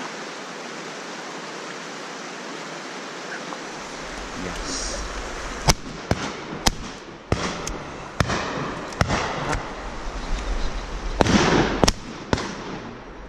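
Shotgun shots on a driven pheasant shoot: about ten sharp reports at irregular spacing begin about halfway in, over a low rumble. Before them there is a steady hiss.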